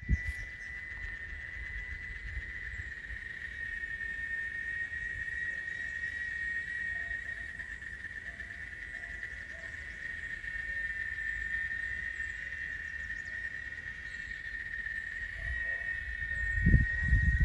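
Insects trilling in one steady high note without a break, over a low rumble. A few louder low bumps come near the end.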